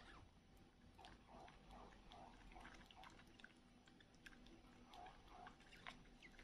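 Baby monkey sucking milk from a feeding bottle: faint, rhythmic sucking and smacking about two to three times a second, with small clicks.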